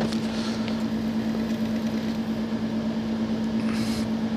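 Steady machine hum with one constant low tone under an even noisy hiss, with no distinct strikes or impacts.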